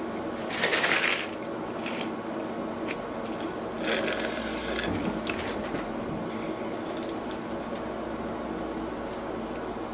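Steady hum of a room air conditioner, with eating noises over it: a brief loud crackling noise about half a second in, and a sip of soda drawn through a straw from a paper cup about four seconds in.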